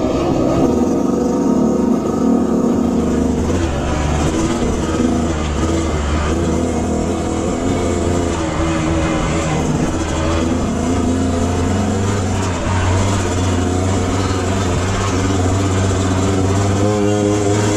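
Dirt bike's single-cylinder engine running on the move, with small rises and falls in throttle.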